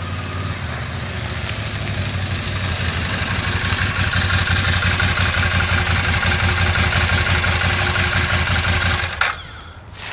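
Ducati Monster's L-twin motorcycle engine running at low speed. It grows louder over the first few seconds, holds steady, then stops abruptly about nine seconds in.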